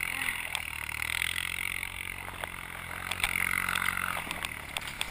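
ATV engine running steadily, its tone swelling slightly for a second or so in the middle, with some scraping noise and a few light clicks.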